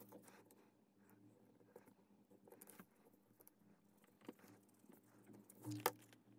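Near silence: faint scattered taps and rustles of hands handling a paper tag and craft tools on a paper-covered work surface, over a faint low steady hum. One slightly louder short tap comes near the end.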